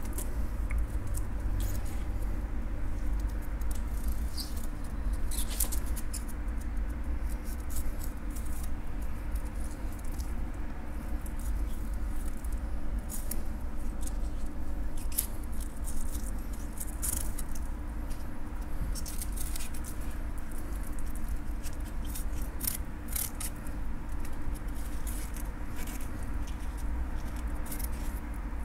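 A knife cutting a fillet off a skinned triggerfish on a wooden board: scattered small scratching clicks as the blade works along the bones, over a steady low hum.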